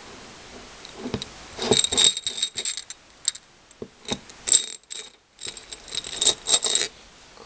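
Small beads and pearls clicking and rattling against a plastic dish and each other as they are picked through by hand, in three short spells of rapid clicks.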